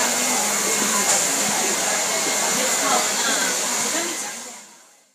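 Handheld hair dryer running steadily, with faint voices under it, fading out to silence near the end.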